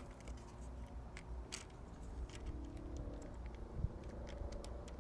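Scattered light clicks and small rattles of a key being worked in a Yakima roof-rack locking mount that is sticking and won't turn, with a faint steady hum underneath in the second half.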